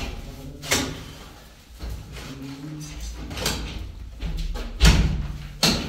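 Shovel scraping and scooping wet mortar in a metal mixing trough: a few sharp scrapes and knocks, the loudest two near the end.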